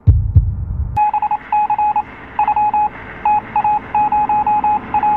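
Typing-text sound effect: rapid short electronic beeps, all at the same pitch, one per letter, coming in quick runs with short gaps as on-screen text is typed out. A low thump comes in the first second, before the beeps begin.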